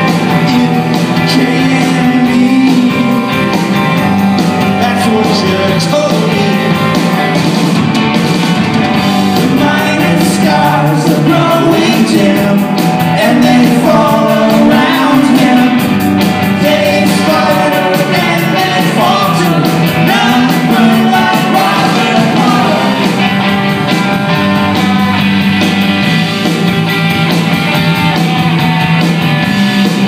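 Live rock band playing a song: electric guitars, bass guitar and drums, with a sung vocal over them.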